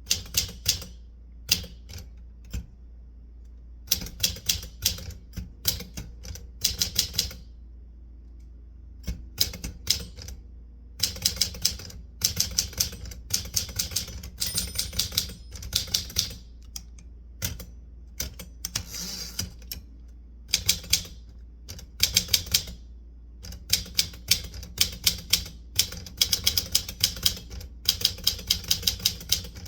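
Typewriter keys being struck in quick runs of sharp clicks, broken by pauses of a second or two between runs.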